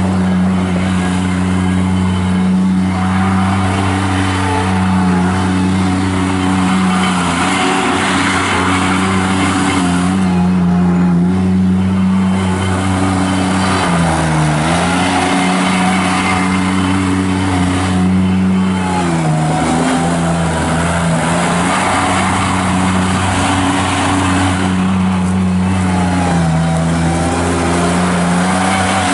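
Avant 420 mini articulated loader's Kubota diesel engine running steadily at working speed, its pitch sagging briefly a few times as the machine takes load.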